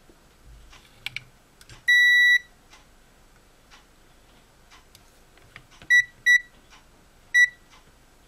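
Digital multimeter (ZOYI ZT102) beeping at one high pitch: a single beep of about half a second, then three short beeps. Light clicks of test probes on the circuit board come just before the first beep.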